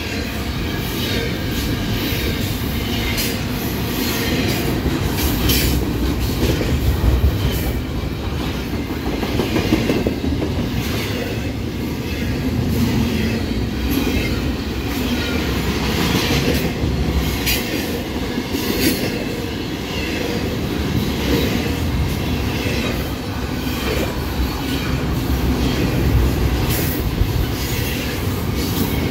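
Double-stack container cars of a CN intermodal freight train rolling past at steady speed: a continuous low rumble of steel wheels on the rails, with irregular clicking as the trucks cross rail joints.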